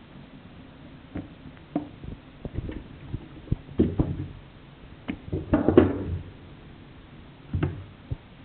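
Irregular knocks and clinks of a chef's knife on a stainless-steel sink drainer, mixed with the rustle of a cloth and the handling of raw chicken, busiest and loudest about five and a half seconds in.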